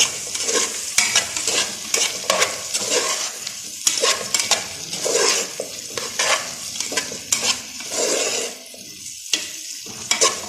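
Cauliflower, onion and potatoes frying in butter and oil in a cooking pot, sizzling steadily while being stirred, with repeated scrapes and knocks of the utensil against the pot. The sizzle quietens somewhat near the end.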